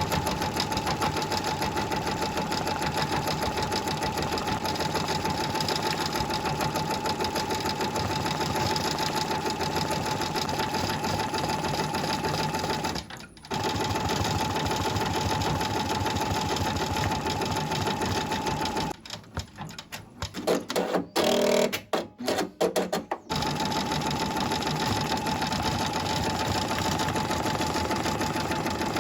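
Brother VR embroidery machine stitching fast and steadily with a constant motor hum. It pauses briefly about halfway through, then runs in short stop-start spurts for a few seconds before stitching steadily again.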